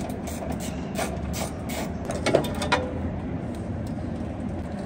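Hand wrench clicking and clinking on metal while loosening the oil pan bolts under a truck engine. The clicks come irregularly, thickest in the first two seconds, with a couple of short metallic rings a little after that, over a steady low hum.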